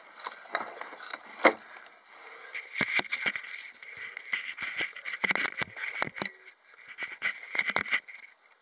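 Irregular sharp clicks and knocks of handling noise, with a faint steady high hum underneath.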